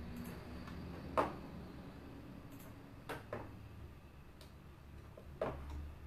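A few sharp clicks of a computer mouse: one about a second in, two close together around three seconds in, and one near the end, over a faint low hum.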